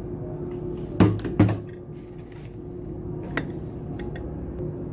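Two sharp metallic clanks in quick succession about a second in, then a lighter click, as metal parts of a submersible pump are handled. A steady hum runs underneath.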